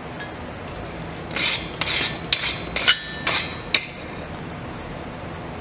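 Stiff wire brush scraped in about six quick strokes across a hot steel knife blank on the anvil, scrubbing off forge scale, with a couple of sharp clicks and a faint ring from the steel.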